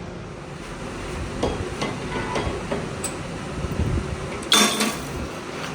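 A series of sharp metal-on-metal knocks, like hammer blows on steel, with a much louder clank about four and a half seconds in that rings briefly.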